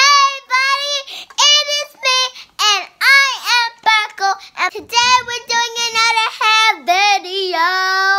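A young girl singing loudly and unaccompanied, in short melodic phrases, ending on a long held note.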